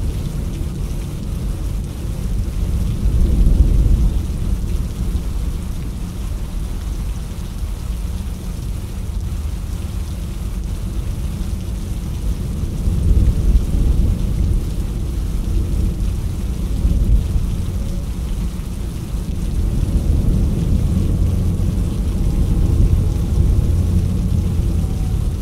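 Rain in a thunderstorm, with a deep low rumble under the steady patter that swells several times: about 3 seconds in, around 13 seconds, and again in the last few seconds.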